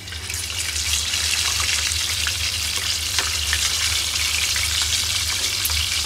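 Whole scored pampano fish frying in hot oil on a ridged grill pan: a steady sizzling hiss peppered with small crackles and pops, swelling up over the first second.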